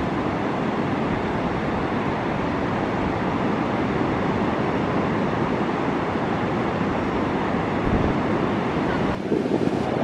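Shallow river flowing, a steady rushing of water over its stony bed. About nine seconds in it cuts abruptly to sea surf breaking on a beach, lower and duller, with wind on the microphone.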